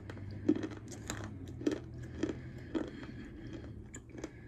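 A person chewing edible clay slate, with crisp crunches about every half second as the dry clay breaks between the teeth.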